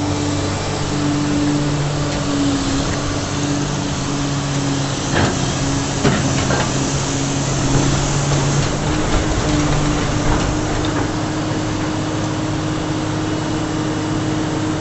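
Heavy machine's engine running steadily under load, with a few sharp metallic knocks in the middle.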